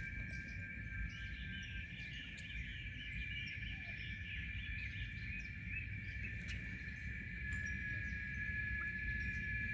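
A steady, high, unbroken drone of insects, with short chirping bird calls over it through the first half or so. A low rumble of wind on the microphone runs underneath.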